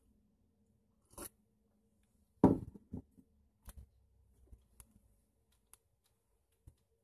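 A man hacking hard twice, about two and a half and three seconds in, as food sticks partway down his throat after a swallow of his drink; a few faint clicks follow.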